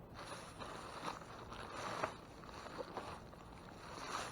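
Rustling and scraping of discarded packaging being rummaged through in a dumpster, with a few light clicks and knocks.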